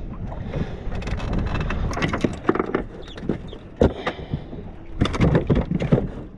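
Wind buffeting the microphone on an open boat, under a run of sharp knocks and rustling from a fish being unhooked and handled close to the camera, the loudest knocks around the middle and near the end.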